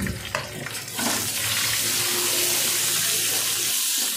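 Sliced onions frying in hot oil in an iron kadhai: a steady sizzle that starts about a second in, after a couple of light knocks.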